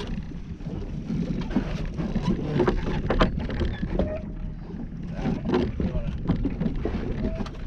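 Deck noise aboard a drifting party fishing boat: a steady low rumble with wind on the microphone, scattered knocks and clatter from gear and fish on deck, and background voices.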